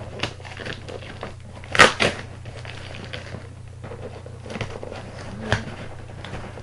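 Cardboard toy boxes being handled and opened: a few sharp knocks and clatter, the loudest about two seconds in, with some rustling of the packaging.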